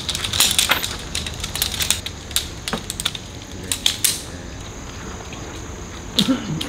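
Quick, irregular clicks and light knocks of small objects being handled, thick for about four seconds and then thinning out.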